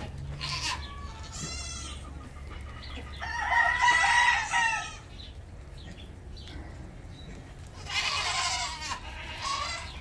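Farm animal calls: a loud, drawn-out call about three seconds in that lasts about a second and a half, another near eight seconds, and a few shorter calls between.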